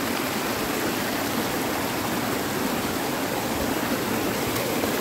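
Hot-spring water rushing over rocks in a steady, even rush.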